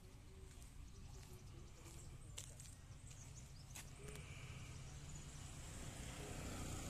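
Faint outdoor ambience: a steady low rumble with a few sharp clicks.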